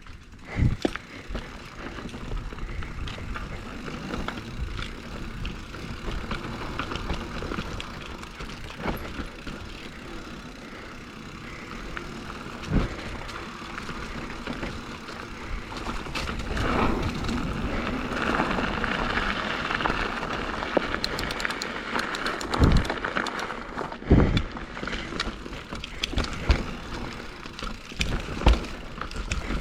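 A mountain bike ridden on a dirt trail: tyres rolling over dirt and roots, with the chain and frame rattling and clicking, a few sharp thumps from bumps, and a louder stretch of rushing noise a little past the middle.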